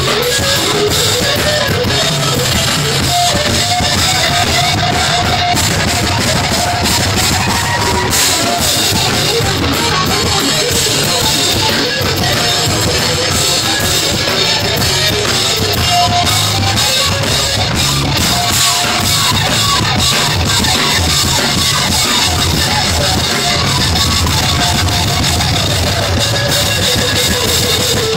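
Live band playing rock music: a drum kit and guitars, loud and continuous, with a melodic guitar line over the drums.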